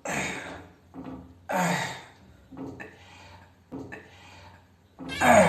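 Loud exertion grunts and groans of a person straining through a gym workout: five drawn-out cries about a second apart, each falling in pitch, the last near the end the loudest.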